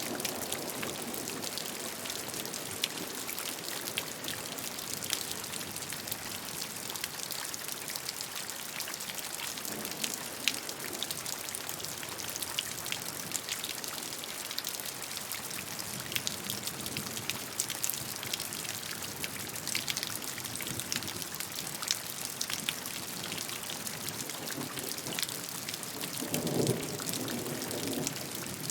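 Steady rainfall hissing, with many individual drops ticking on a surface. A brief low rumble rises near the end.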